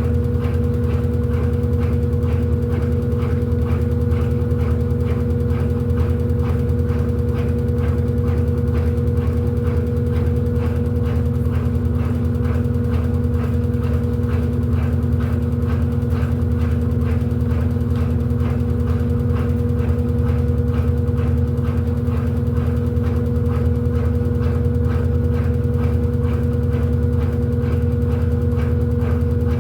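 Electrolux LED14 14 kg washing machine running, a steady motor hum with a fast, even rattle over a low rumble.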